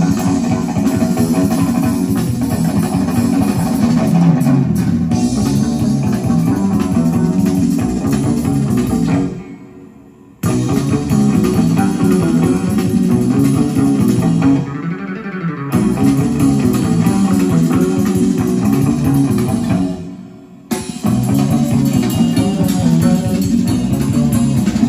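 Guitar-led instrumental music with bass playing loud through a vintage hi-fi, a Sansui 9090 receiver driving Celestion Ditton 442 speakers, heard in the room. The band stops short twice for about a second, around ten seconds in and again around twenty seconds in.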